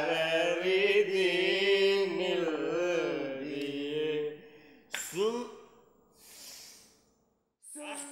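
A man chanting a long drawn-out sung line, its pitch wavering, for about four seconds. About five seconds in comes a short rising vocal cry and a breathy exhale, then a moment of silence before another held note starts near the end.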